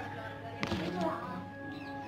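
Soft background music with long held notes, and a single brief knock about half a second in.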